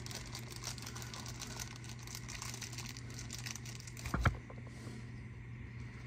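Clear plastic parts bag from a carburetor rebuild kit crinkling faintly as it is handled, with one sharp knock on the bench about four seconds in, over a steady low hum.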